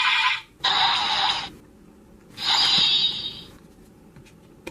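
Three short hissing, whoosh-like sound effects for the Decade-style 'Attack Ride: Invisible' card, each under a second long, with a quiet pause after the third.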